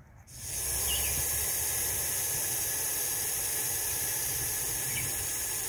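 Russell's viper hissing: one long, loud, steady hiss like air rushing from a punctured tyre, starting a moment in. It is the snake's defensive warning when it feels threatened.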